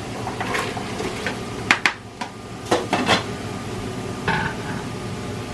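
Kitchen clatter as potatoes are tipped into a cooking pot: five or so sharp knocks and clinks of a container and utensils against the pot, spread over a few seconds, over a steady low hum.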